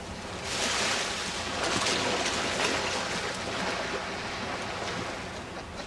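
Gulf surf breaking on the beach: a wave crashes about half a second in, then washes and slowly fades.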